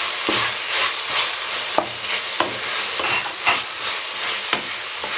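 Sliced onions, shallots, green chillies and freshly added chopped tomatoes sizzling in hot coconut oil in a nonstick frying pan, stirred with a spatula that knocks and scrapes against the pan about once a second.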